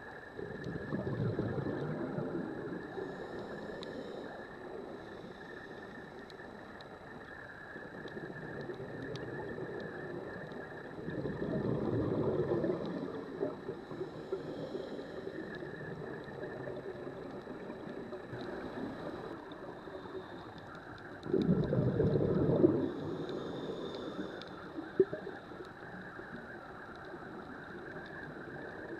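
A scuba diver breathing through a regulator, heard underwater from the camera: three rounds of exhaled bubbles about ten seconds apart, each followed by a fainter hiss, over a steady underwater hiss.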